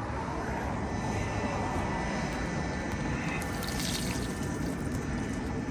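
Cooking oil being poured into a wok that is heating on a camp stove, with a steady rushing noise underneath.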